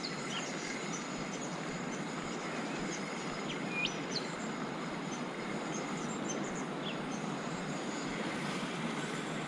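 River water flowing steadily, with a few short bird chirps now and then.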